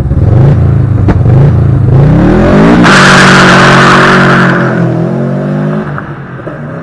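Subaru Impreza WRX's turbocharged flat-four revving up, then a hard launch with the tyres spinning in a loud screech for about a second and a half as the car accelerates away, the sound falling off near the end.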